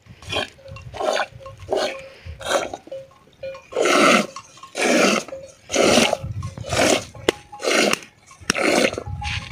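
Camel being milked by hand into a steel pail: milk squirts from the teat into the milk already in the pail, about one squirt a second, louder from about four seconds in.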